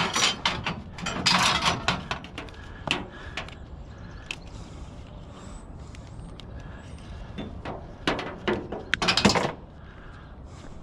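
Discarded junk being handled and rummaged through by hand: clusters of clattering knocks and scrapes in the first two seconds, a few more around three to four seconds, and another loud clatter between about eight and nine and a half seconds.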